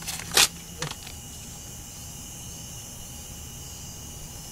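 Paper being ripped up in three quick tears within the first second, the middle one the loudest, followed by a steady high hiss.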